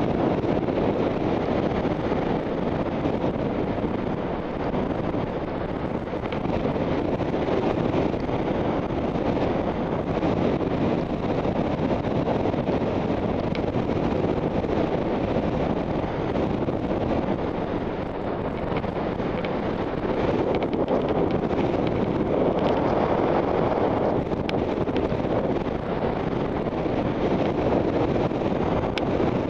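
Steady rushing wind noise on a helmet camera's microphone while skiing downhill.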